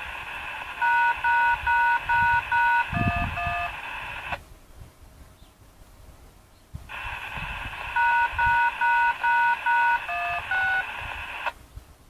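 Radio receiver picking up DTMF activation tones for an outdoor warning siren: a burst of radio hiss carrying five identical two-tone beeps, then two lower beeps, ending with a click about four seconds in. The same tone sequence comes over the radio again about seven seconds in.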